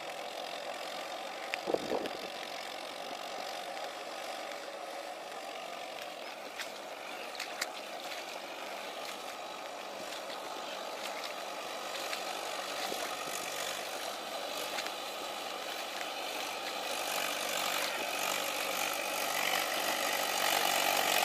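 Swaraj 843 XM tractor's three-cylinder diesel engine running steadily as it works a rotavator through deep mud, with a brief loud knock about two seconds in. The sound grows louder over the last few seconds.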